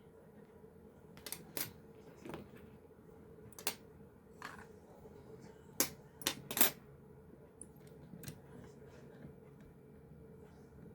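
Scattered small metallic clicks and taps from handling a freshly picked Yale Superior dimple lock and its picking tools, the sharpest cluster a little past the middle.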